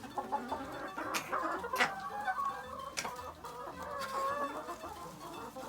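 Laying hens clucking with drawn-out, wavering calls, and a few sharp knocks about one, two and three seconds in.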